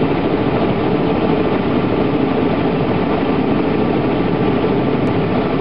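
Loud, steady engine noise with no change in pitch or level.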